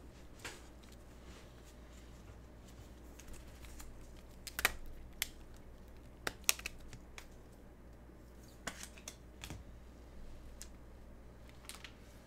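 Hands handling small objects at a desk: scattered sharp clicks and taps, a few seconds apart and clustered near the middle, over a steady low hum.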